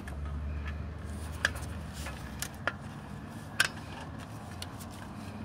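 Flathead screwdriver clicking against the distributor cap's spring hold-down latches as they are pushed down and turned. A few sharp clicks about a second apart, over a low background rumble.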